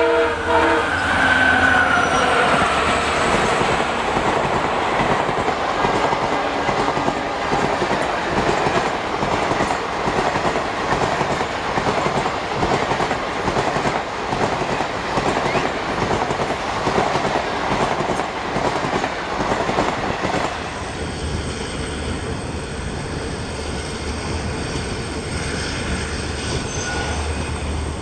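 An EMD WDG-4 diesel locomotive's horn ends just after the start as the train passes, then its passenger coaches rush by with a steady clickety-clack of wheels over rail joints. About 20 seconds in, this gives way abruptly to the quieter, steady running noise of a train heard from aboard, with a low hum.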